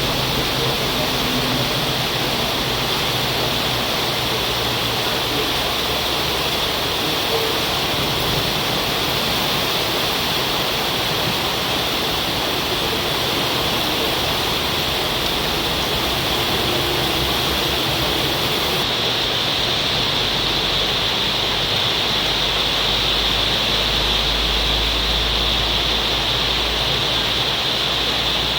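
Heavy rain pouring down in a steady, dense hiss, with a low rumble joining in about two-thirds of the way through.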